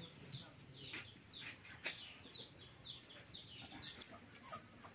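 Faint chirping of birds, many short falling peeps several a second, with a few light knocks as a stone crushes garlic on a grinding slab.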